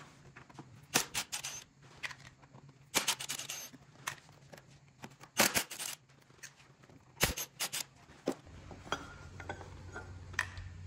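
Irregular sharp clicks and short clatters as security Torx screws are backed out of an e-bike's cover plate with a cordless driver and the plate is handled.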